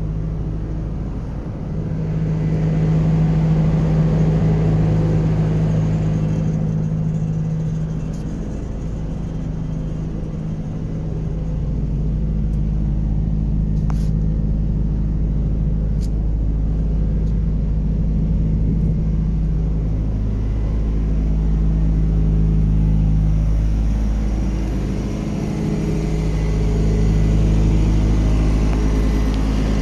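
Diesel engine running steadily, its hum swelling and shifting in tone a few times, with a couple of faint clicks midway.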